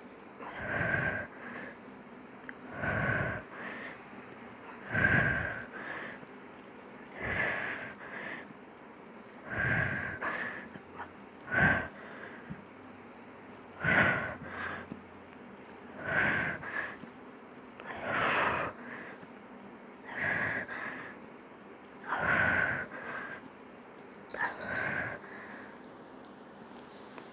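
A woman breathing hard and audibly during a set of exercise, one forceful breath about every two seconds, some in quick in-and-out pairs, in time with her repetitions.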